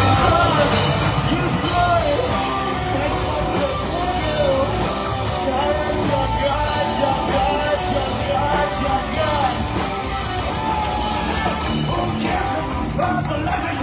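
Rock band playing live, with a singer's melody over the full band.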